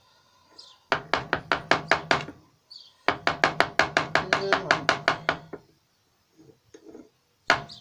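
Rapid light taps on a metal ingot mould, about eight a second in two long runs with a short pause between, to knock loose a zinc-aluminium ingot that is stuck fast in the mould. A few fainter taps follow and another run starts near the end.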